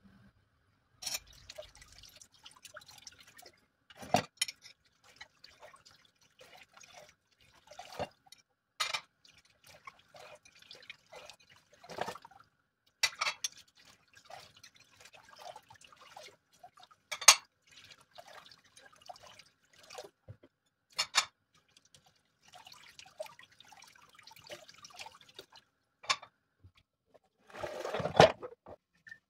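Dishes being washed by hand in a plastic basin in a sink: water splashing and dripping, with glasses and dishes clinking at irregular moments. A longer, louder burst of splashing and knocking comes near the end as the basin is handled.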